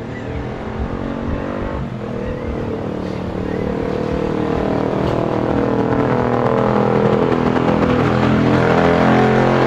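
A motor vehicle's engine running and growing steadily louder.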